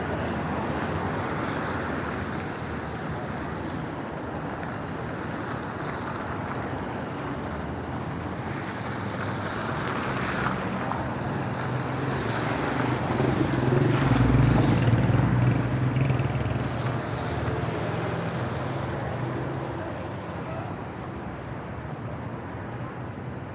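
City traffic on a wet road: a steady hiss of tyres and engines, with one car passing close and its engine rumble loudest a little past the middle.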